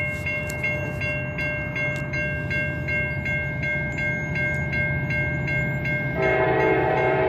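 Approaching diesel freight train: a bell dings steadily about three times a second over the low rumble of the locomotives. About six seconds in, the lead locomotive's multi-chime air horn comes in loud and holds.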